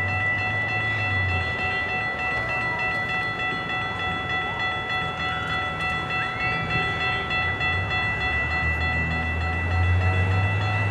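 Railroad crossing warning bell ringing continuously as the crossing activates, a steady high-pitched ring. Under it runs a low engine rumble that is louder at the start and again near the end, as the gate arms come down.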